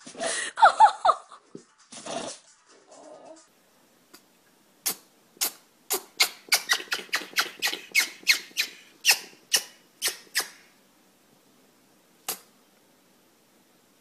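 Female eclectus parrot sneezing over and over: about seventeen short, sharp sneezes in quick succession, then one more after a pause near the end. It opens with a few loud, short noises from a small dog.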